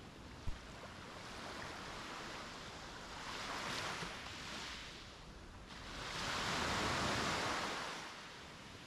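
Sea waves breaking and washing up a beach in two swells; the second and larger one rises about six seconds in and then draws back. A brief low thump sounds about half a second in.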